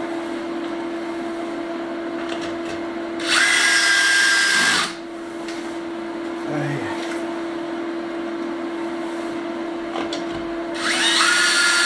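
Cordless drill running twice, about 1.5 s each, around three seconds in and near the end, each run opening with a rising whine as the motor spins up, as it drives screws into the wall. A steady low hum runs underneath.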